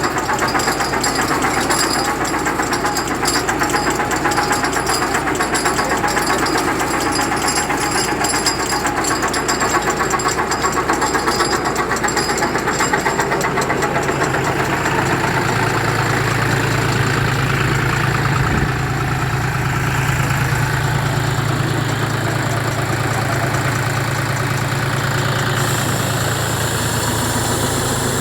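A tractor engine running steadily, driving a tractor-mounted atta chakki (stone flour mill) with a fast mechanical clatter. About halfway through, a steady low hum comes up and the higher clatter fades.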